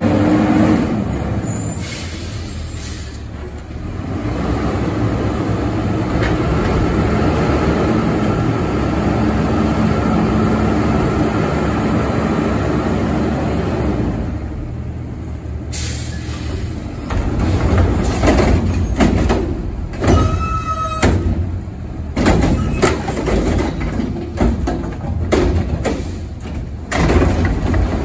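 Diesel recycling truck running, with a steady, louder stretch for about ten seconds, then a run of sharp metallic clanks and bangs through the second half as recycling carts are handled and dumped.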